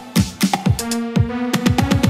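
Music: a drum-machine hip-hop beat with deep bass hits that drop in pitch, quick hi-hat ticks and held synth notes. In the second half the bass hits come in a fast roll.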